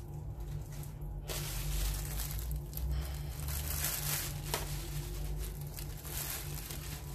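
Paper and plastic wig packaging rustling and crinkling in irregular bursts as a synthetic wig is repacked into its box.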